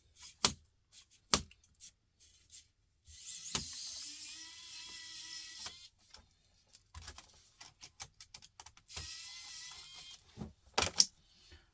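Sharp clicks and knocks of laptop parts being handled, with a small motor whirring for about three seconds a few seconds in and again briefly near the end.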